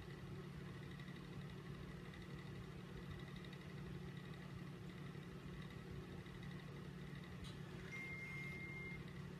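Steady low hum of background noise, with a short thin high tone lasting about a second near the end.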